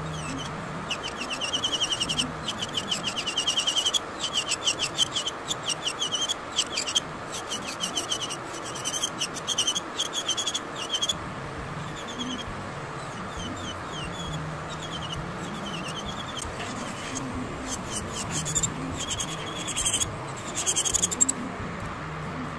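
Electric nail drill grinding gel polish off a fingernail with a cylindrical bit: rapid, high-pitched scraping strokes in dense runs from about a second in, thinning out in the middle and picking up again near the end. A nail dust collector's fan hums steadily underneath.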